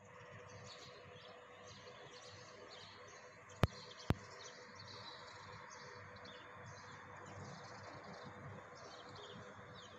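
Faint steady sizzle of sliced onions, tomatoes and green chillies cooking in oil in a nonstick pot, with faint high chirping over it. Two sharp clicks half a second apart come about three and a half seconds in.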